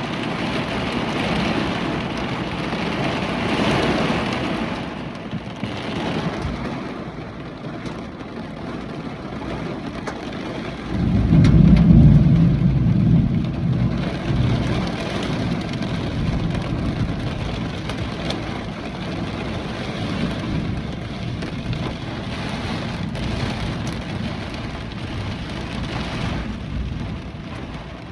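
Hurricane rain and wind making a steady rushing noise, with a louder low rumble about eleven seconds in that lasts a few seconds and then eases back into the rain.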